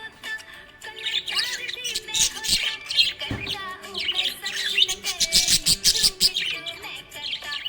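Budgerigar chirping and warbling in quick, dense runs of short notes, starting about a second in.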